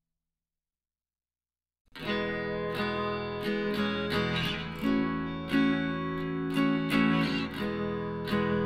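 Silence, then background music starts abruptly about two seconds in: acoustic guitar music with a run of repeated plucked strokes.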